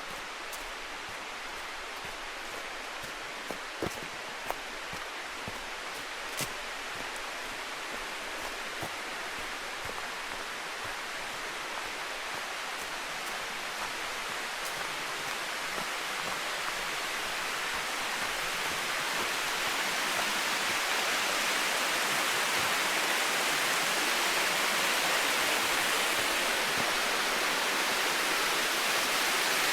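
Rushing water of a mountain creek and waterfall: a steady hiss that grows louder through the second half. A few light taps sound in the first several seconds.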